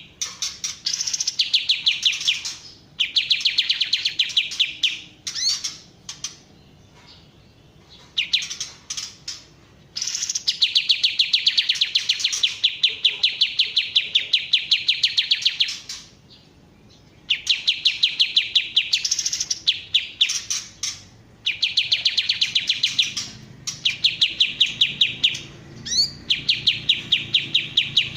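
A kapas tembak songbird singing long, rapid trills of evenly repeated high notes. The phrases last from about one second to six seconds, with short pauses between them.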